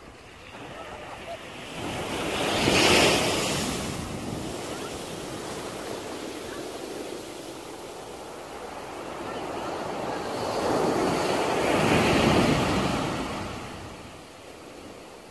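Small sea waves breaking and washing up a sandy beach: two surges, one about three seconds in and a longer one near the end, each swelling and then fading.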